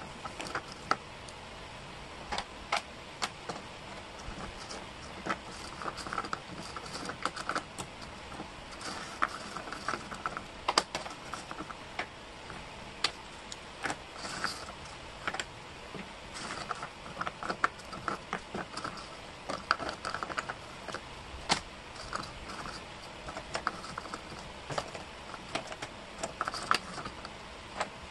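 Small wooden jigsaw pieces clicking and clattering as hands pick them up, drop them and slide them across a cork board. The sharp taps come in quick irregular clusters, with short stretches of sliding rustle between them.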